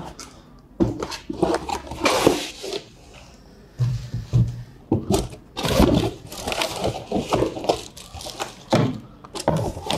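Cardboard, foam and plastic packing being handled as a laptop is unpacked: irregular scraping, knocking and rustling of the box, the foam end caps and plastic wrap.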